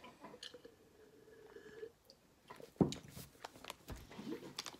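Close-up chewing of a Bean Boozled jelly bean: soft, wet mouth clicks and smacks, with one louder thump about three seconds in.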